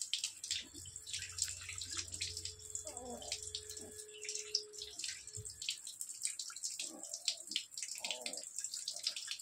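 Water running from an outdoor tap into a plastic bucket, with irregular splashing and dripping as a wet puppy is washed by hand under it.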